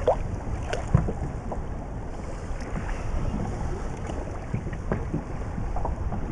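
Wind on the microphone and sea water lapping against an inflatable boat, a steady low noise, with two sharp knocks in the first second.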